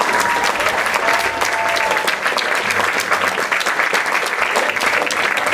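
Audience applauding, dense steady clapping from many hands, with a few faint held voices or whistles in the first couple of seconds.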